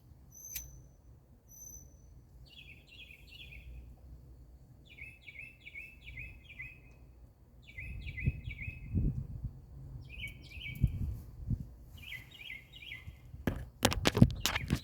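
A bird singing over and over from one perch: high thin piping notes at first, then short phrases of quick repeated chirps, one phrase every two to three seconds. Low rumbling comes in from about eight seconds, and a burst of loud knocks comes near the end.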